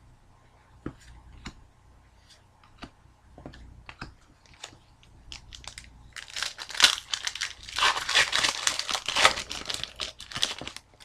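Light clicks of trading cards being handled, then about four seconds of loud crinkling and tearing of thin card packaging.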